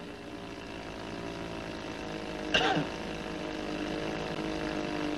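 Aircraft engine droning steadily, with a brief vocal sound about two and a half seconds in.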